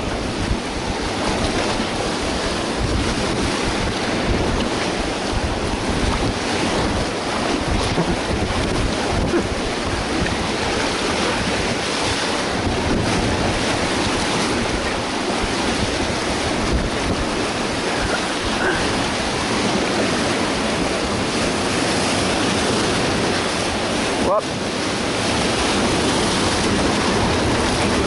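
Steady, loud rush of whitewater as an inflatable raft runs a big river rapid, waves breaking against its tubes, with wind rumbling on the microphone.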